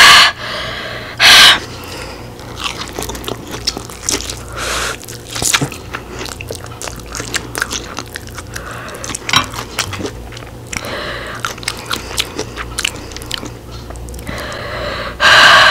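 Close-miked eating of spicy instant noodles: slurping and chewing with many small wet mouth clicks, a loud slurp about a second in and a longer loud hissing rush near the end.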